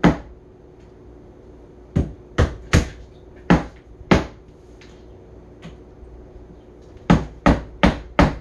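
Hammer tapping wooden pegs into a particleboard flat-pack bench: sharp knocks, one at the start, a run of five about two seconds in, and four more quickly near the end.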